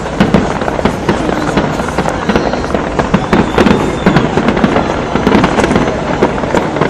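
Large fireworks display, with shells bursting in rapid succession: many sharp bangs and crackles overlapping without a break.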